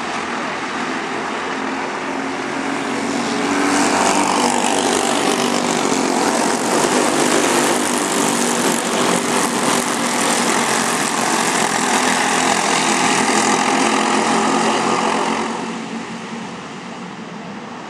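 Racing kart engine running hard. It gets louder about four seconds in and holds there, then drops off sharply near the end.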